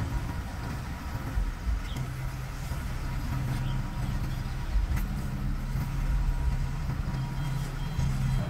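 Diesel engine of an asphalt paver running steadily with a low hum.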